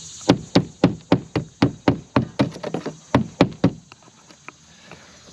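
Hammer driving nails into wooden roof decking: a quick, even run of about fourteen sharp strikes, roughly four a second, stopping a little before four seconds in. The nails are blowing all the way through the old, weak roof members beneath.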